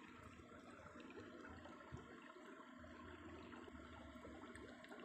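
Faint trickling of shallow stream water over stones, with one soft knock about two seconds in.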